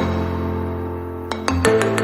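Background music: bright struck or plucked notes over a steady low bass.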